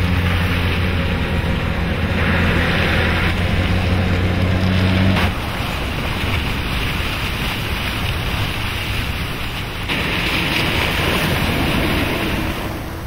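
A four-wheel-drive SUV driving through a muddy river, its tyres churning and splashing the water, with a steady low engine hum. The hum drops out about five seconds in, leaving the rushing, splashing water, which swells again near the end.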